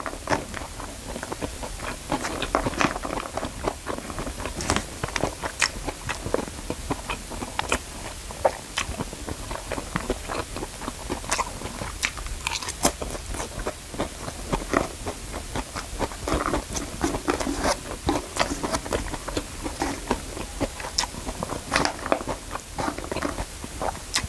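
Close-up chewing and mouth sounds of a person eating chicken fried rice (nasi goreng), with a spoon clicking and scraping against the paper wrapper now and then as he scoops up more.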